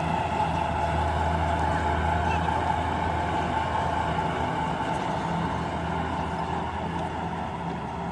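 Heavy farm diesel engine running steadily at an even pitch, with no revving.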